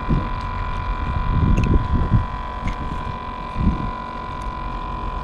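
Low rumble of wind on the microphone under a constant high-pitched whine, with a few light clicks.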